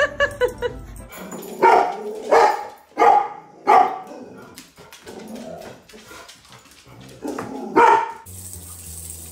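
A dog barking: four loud barks in about two seconds, then fainter sounds, then one more bark near the end.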